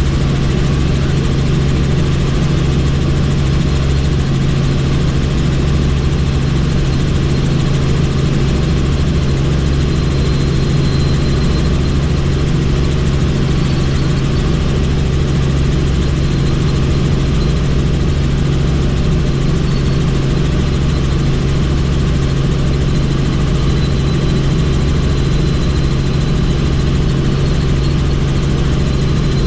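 Helicopter in flight, heard from on board: a loud, steady drone of turbine and rotors with a constant low hum and a hiss of rushing air.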